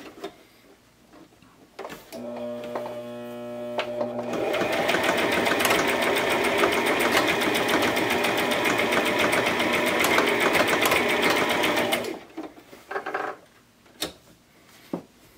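Brother XM3700 electric sewing machine sewing a zigzag stitch. About two seconds in it starts slowly with a steady motor hum, then runs fast with rapid needle strokes for about eight seconds and stops abruptly. A few sharp clicks follow.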